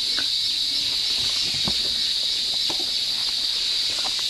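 Tropical forest insect chorus, a steady high-pitched drone, with a few short clicks and snaps scattered through it.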